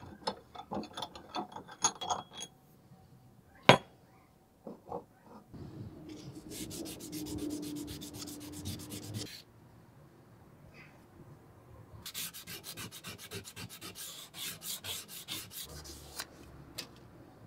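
Sandpaper rubbed by hand over a cast-iron bench vise body, in two spells of quick back-and-forth rasping strokes. At the start there are light metallic clinks and, once, a sharp knock as the vise's steel parts are handled.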